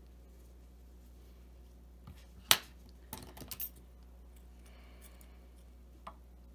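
Scissors snipping off thread ends: one sharp snip about two and a half seconds in, a quick run of smaller clicks a moment later, and one faint click near the end.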